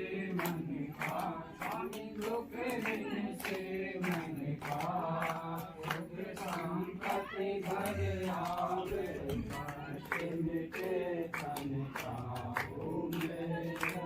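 A group of voices singing a Hindu devotional hymn together, accompanied by a steady beat of hand clapping.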